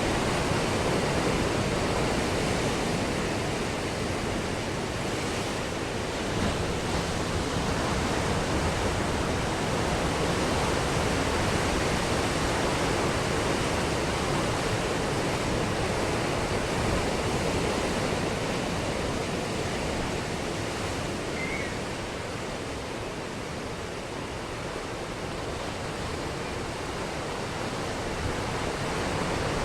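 Ocean surf breaking on a beach: a steady rush of waves, easing a little in the second half and building again near the end.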